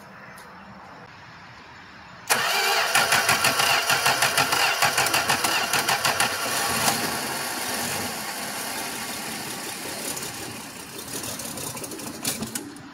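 A 1966 Dodge Dart's 225 slant-six being cranked on a cold start after sitting for a week. It comes in suddenly about two seconds in with a rhythmic chugging of about four beats a second, turns steadier, then fades and stops near the end.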